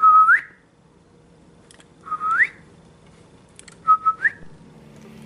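A person whistling three short notes about two seconds apart, each held briefly and then sliding sharply upward, to get a cat's attention.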